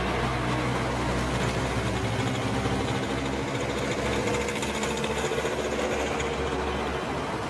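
Street traffic: a vehicle engine running with a steady low hum and a fast rattle, with a car passing close by about six seconds in.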